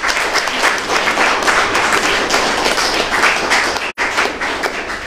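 Crowd applauding: many hands clapping together in a dense, loud patter that breaks off for an instant about four seconds in.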